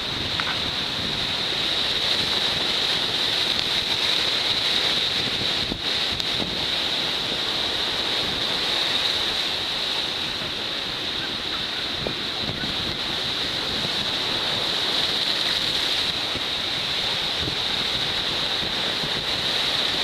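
Rough sea surf breaking and washing over a rocky shore in a steady, unbroken rush, with wind buffeting the microphone.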